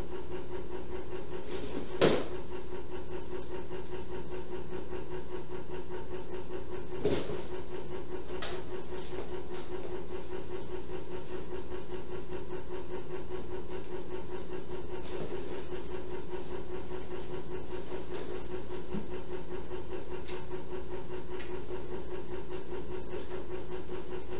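A steady mechanical hum, with a few short knocks about two and seven seconds in.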